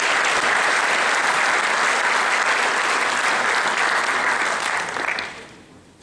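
Audience applauding steadily, dying away about five seconds in.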